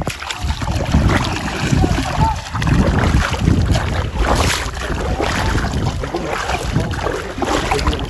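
Wind buffeting the microphone, with shallow seawater sloshing and splashing around wading legs.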